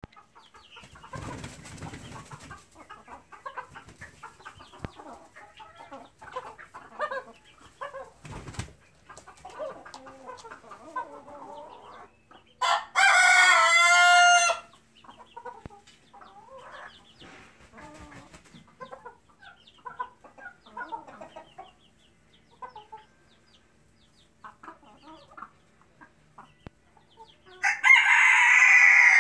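Silkie chickens clucking softly in a pen, and a rooster crowing loudly twice: once about 13 seconds in and again near the end.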